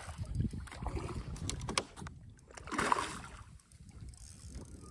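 Hooked fish thrashing and splashing at the water's surface right beside the boat, with the loudest splash about three seconds in, over a steady low rumble.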